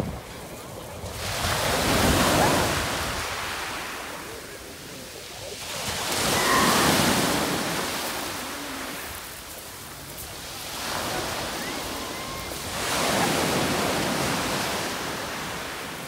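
Black Sea surf: small waves breaking and washing up the shore, the rush swelling and falling back four times, about every four seconds.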